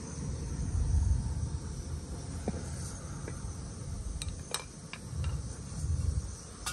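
Wind buffeting the microphone in low gusts over a steady high hiss, with a string of light clicks and taps from pots and pans being handled in the middle.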